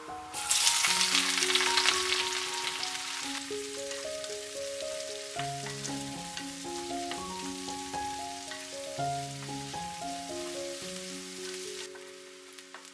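Sliced onions hitting hot mustard oil in a wok: a loud sizzle starting about half a second in, easing over the next few seconds into a steadier, quieter frying as they are stirred with a wooden spatula. A music track with a melody plays throughout.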